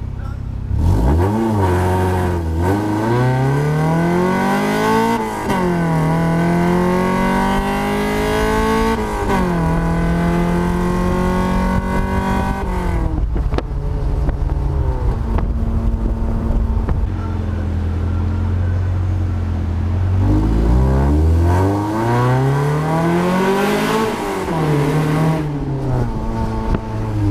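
1990 Mazda Miata's 1.6-litre four-cylinder, on 4-2-1 headers and a straight pipe, pulling hard from a standing launch at about 3,000 rpm. It climbs in rev and changes up three times, at about 2, 5 and 9 seconds in. It lifts off around 13 seconds, runs steadier for a few seconds, then pulls hard again through another gear change near the end.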